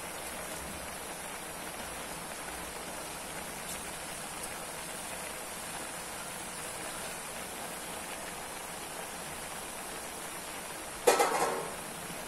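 A wok of vegetables on a gas stove hissing steadily, with one sharp metal clatter that rings briefly near the end.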